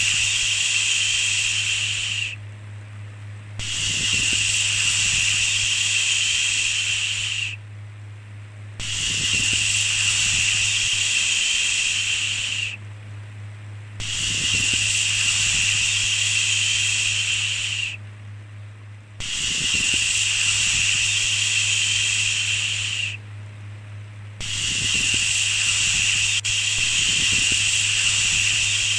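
Repeated long "shhh" shushing sounds, each hiss lasting about four seconds with a short pause between, about six in all, as soothing white noise. A steady low hum runs underneath.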